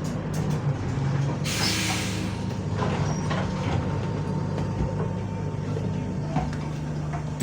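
City bus diesel engine running steadily, with a short, loud blast of compressed air from the air brake system about a second and a half in.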